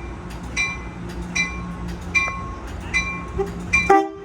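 Amtrak Pacific Surfliner locomotive bell ringing steadily, about one strike every 0.8 seconds, over the steady hum of the train. Near the end the train's multi-note horn sounds a short, loud blast.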